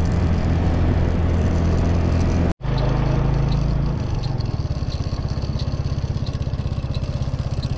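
Vehicle engine running on the move, a steady hum broken by a sudden brief dropout about two and a half seconds in. From about four seconds the engine note turns to an even pulsing.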